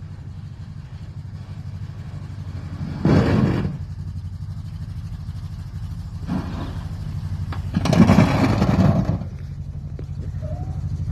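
Van engine running steadily at low revs, with three louder bursts of rushing, scraping noise as the slammed body ploughs through snow. The longest and loudest burst comes about eight seconds in.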